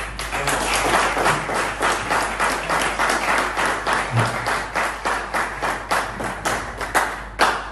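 Audience applauding, many people clapping together, with a few sharp claps standing out near the end.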